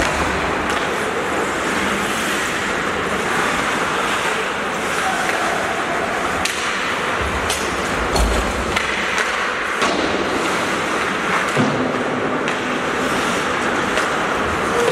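Ice hockey play on the rink: a steady scraping of skates on ice, with sharp clacks of sticks and puck scattered throughout and a low thud about eight seconds in.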